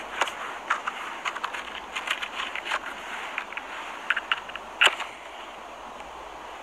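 Small rocks being handled and shifted on bare rock: a run of short scrapes and clicks, with one sharp knock about five seconds in, over a steady hiss.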